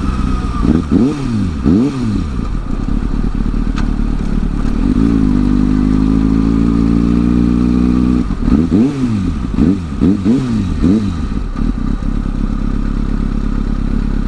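Kawasaki ZX-6R sport bike's inline-four engine at parking-lot speed. Two quick throttle blips come about a second in, then a steady low-rpm pull from about five to eight seconds. A run of about five short blips follows before it settles to a steady idle.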